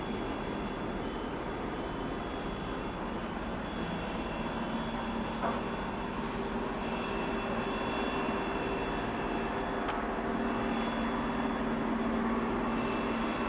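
Jet airliner engines running steadily: a low hum with a faint high whine, growing slightly louder in the second half.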